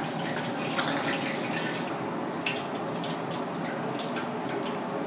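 Broth simmering in an aluminium pan over a gas flame: a steady bubbling with many small irregular pops, and a ladle dipping into the liquid.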